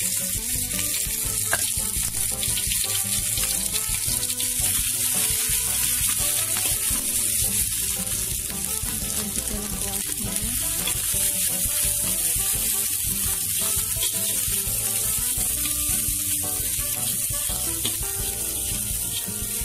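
Ground spice paste of shallots, garlic and candlenuts sizzling steadily in hot oil in a wok as it is stirred with a metal spatula: the paste is being sautéed until fragrant.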